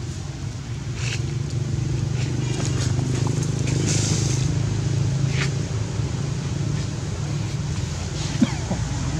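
A steady low engine-like rumble, with a few short high-pitched monkey squeals about a second in, around four seconds in and at about five and a half seconds.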